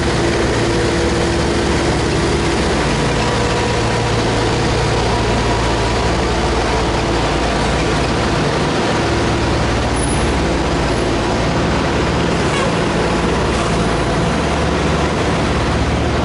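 A heavy vehicle engine running steadily and evenly under a constant rushing noise, with no change in pitch or level.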